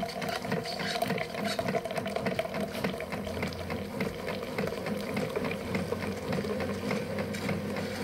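Single-serve coffee brewer running as it brews a cup of hot cocoa: a steady mechanical buzzing rattle, with a low hum joining about three seconds in.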